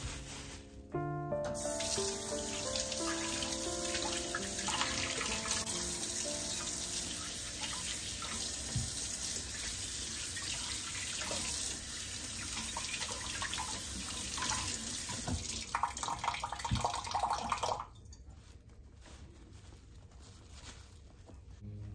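Kitchen sink faucet running in a steady stream, with water splashing over hands held under it. It is shut off about 18 seconds in.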